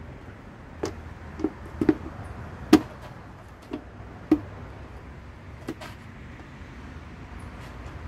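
Plastic engine cover of a Suzuki DF2.5 outboard being pressed into place and latched: a string of sharp plastic clicks and knocks, the loudest a little under three seconds in.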